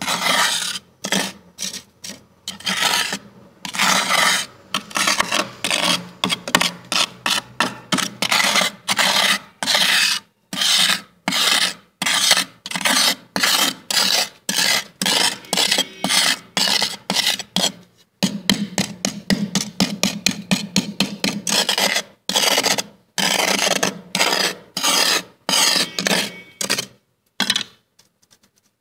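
Fingers scraping thick, soft freezer frost in a run of quick strokes, about two a second, going faster for a few seconds past the middle, then stopping shortly before the end.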